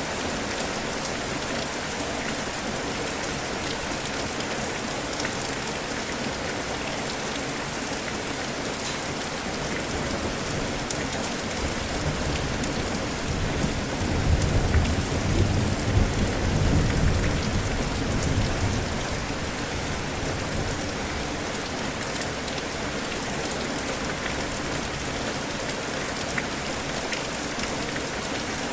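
Steady heavy rain falling, with a low roll of thunder that swells about halfway through and rumbles for several seconds before fading back into the rain.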